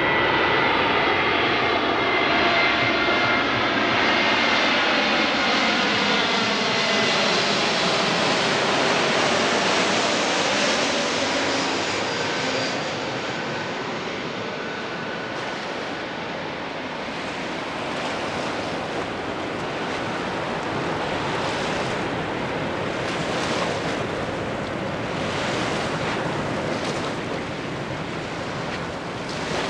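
ANA Airbus A321neo's Pratt & Whitney PW1100G geared turbofans passing low overhead on landing approach. The jet's whine falls in pitch as it goes by, then the engine noise slowly fades as the plane descends away toward the runway.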